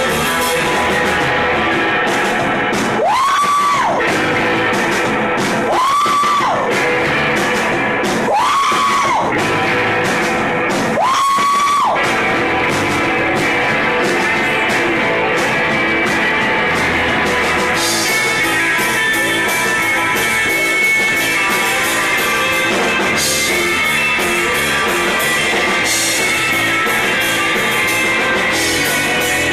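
A live rock band playing: distorted electric guitar, bass guitar and drums, with a woman singing. Four long, high held notes come one after another in the first half.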